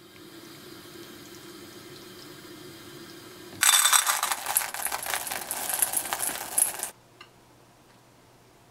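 Chocolate chips poured into a stainless steel bowl: a dense clatter of many small hard pieces against metal for about three seconds, after a steady low hum at the start, and followed by a single light click.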